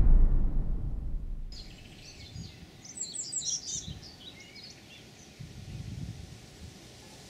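A deep boom from an intro sound effect dies away over the first second and a half. Then songbirds chirp over a quiet outdoor background with a few faint low rumbles.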